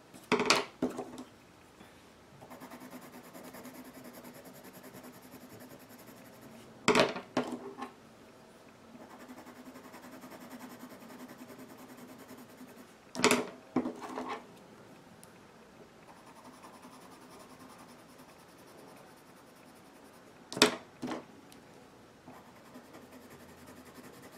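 Colored pencils scratching over paper in quick back-and-forth shading strokes. About every six or seven seconds, four times in all, a short clatter of clicks as one pencil is laid down and the next picked up.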